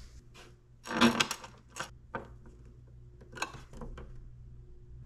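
Small metal hardware clicking and clinking as spacers, washers and a long machine screw are handled and fitted onto a monitor's mounting bracket, with a hand screwdriver turning the screw near the end. A scatter of light clicks and knocks, the loudest cluster about a second in.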